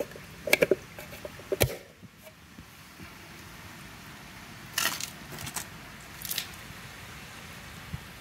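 A 3D-printed PLA wheel centre cap being pushed into an alloy wheel's centre bore: a few sharp plastic clicks and knocks in the first two seconds as it is pressed home, then a few lighter clicks and rustles around the middle.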